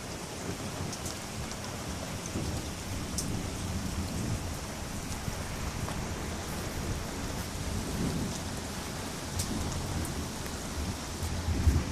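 Steady rain hissing, with a few sharp drips close by, while low thunder rumbles under it. The thunder swells several times and is loudest near the end.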